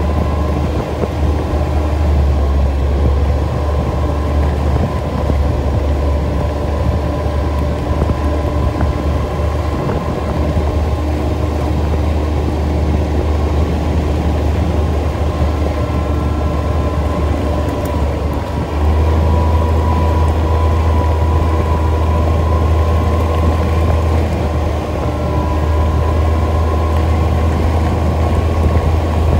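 ATV engine running steadily while riding along a dirt trail, with a strong low rumble; it gets a little louder about two-thirds of the way through.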